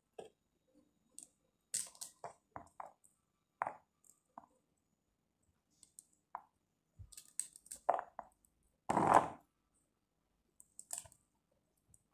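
Hands picking pomegranate arils from the peel into a plastic container: scattered small clicks and crackles. The loudest sound is a brief rustle about nine seconds in.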